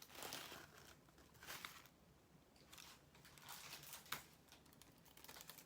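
Faint rustling of plastic packaging being handled, with a few soft crinkles and clicks, about a second and a half apart at first and another about four seconds in.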